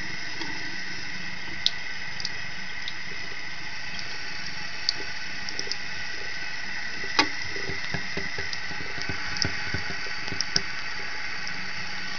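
Bathroom tap running a thin stream into the sink: a steady hiss of falling water, with scattered drips and small splashes, and a run of soft taps in the middle.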